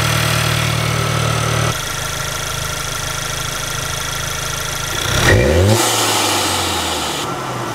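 Volkswagen MK7.5 GTI's turbocharged 2.0-litre four-cylinder idling, heard at an aftermarket Integrated Engineering open cone-filter intake. A little after five seconds in, a quick throttle blip revs it up and lets it fall back to idle.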